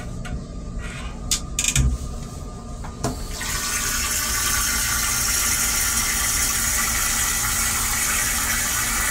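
Toilet seat knocking and clunking a few times as it is raised, then, about three seconds in, a stainless steel railcar toilet flushing with a loud, steady rush of water.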